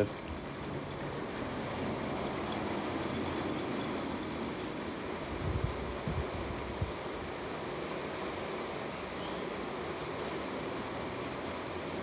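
Gasoline pouring steadily from a plastic fuel jug into a lawn mower's fuel tank, with a few low bumps about halfway through.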